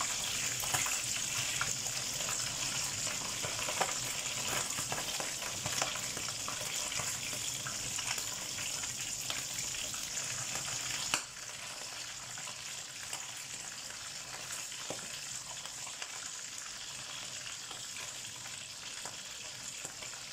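Flying fish deep-frying in a pan of hot oil: a steady, dense sizzle with occasional scrapes and taps of a slotted spoon turning the fish. A sharp click comes about halfway, after which the sizzle goes on more quietly; the fish are still fighting, not yet crisp.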